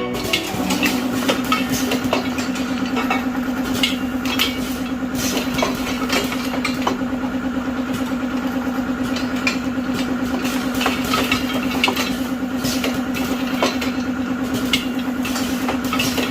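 Automatic bottle filling and capping machine running: a steady motor hum with frequent short clicks and clacks from the mechanism.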